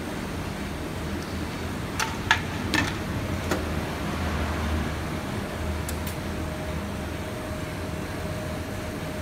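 Steady low mechanical hum with a handful of sharp clicks about two to three and a half seconds in; a faint steady whine joins about six seconds in.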